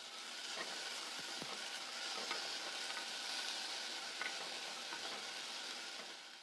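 Matchstick-cut potatoes (aloo bhaja) frying in oil in a pot, a steady sizzle, stirred with a wooden spatula that taps against the pot a few times.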